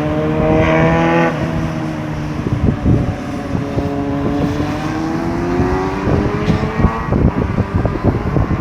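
Road traffic at a roundabout: a vehicle engine holds a steady note, then another engine pulls away with its pitch slowly rising for several seconds before it fades off. Gusty thumps of wind on the microphone come in near the end.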